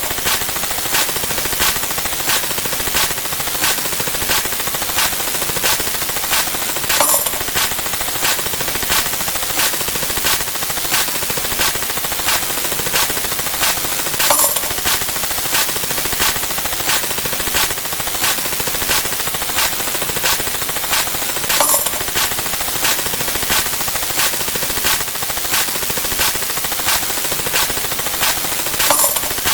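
Sound effects repeating in a steady rhythm: sharp clicks a few times a second. About every seven seconds a louder hit with a brief ringing tone comes in.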